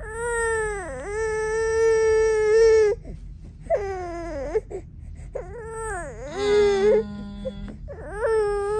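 Five-month-old baby crying in loud wails. The first cry is drawn out for about three seconds, and shorter cries follow with brief breaks between them.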